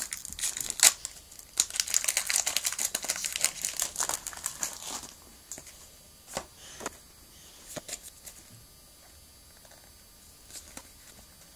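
Foil wrapper of a Pokémon trading card booster pack crinkling and tearing as it is opened, densely for about five seconds. After that, only a few scattered light clicks as the cards are handled.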